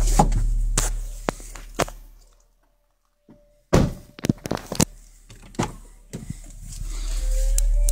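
FB Áudio 12-inch 3000 W RMS car subwoofer playing a deep, steady bass note that fades out about two seconds in. After a moment of silence come several clicks and thunks of a car door being handled, and the bass starts again near the end.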